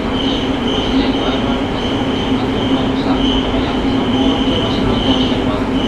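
Tokyo Metro 05 series subway train running at speed in a tunnel, heard from inside the car: a steady rolling roar with a high-pitched wheel squeal that comes and goes.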